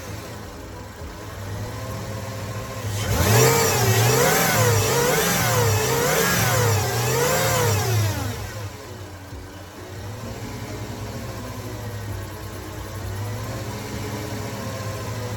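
2004 Jeep Grand Cherokee engine idling, then revved four times in quick succession about three seconds in, then settling back to a steady idle. The engine is now running after a crank-but-no-start fault.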